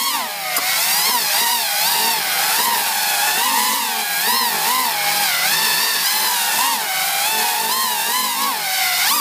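The brushless motors and propellers of a DJI Snail racing quadcopter whine up close from on board. The pitch keeps rising and falling as the throttle is worked in flight.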